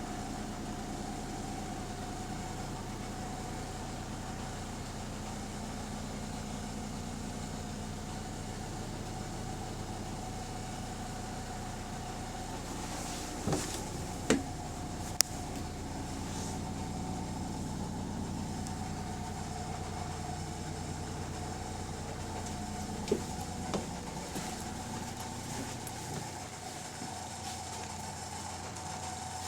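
Double-decker bus's diesel engine running steadily, heard from inside the bus, with a steady whine over the low rumble. A few short sharp clicks or knocks about halfway through and again a little later.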